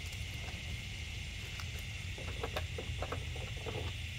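Quiet outdoor background: a steady low rumble and an even hiss, with a few faint clicks and taps from small tools and the canvas being handled on a truck tailgate.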